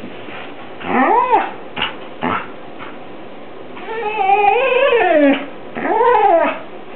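A shepherd-mix dog "talking" on request: three drawn-out, howl-like calls that rise and fall and waver in pitch, the first about a second in, a longer one around four seconds in, and another near the end. Two short, sharp sounds come between the first and second calls.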